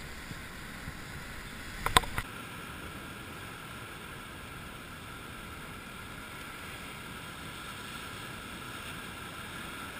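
Steady wind and surf noise against sea rocks, with a few sharp clicks about two seconds in; after them the low rumble drops away and only a steady hiss remains.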